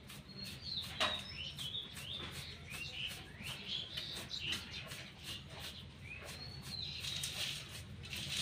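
Small birds chirping, a steady run of short, quick chirps and warbles.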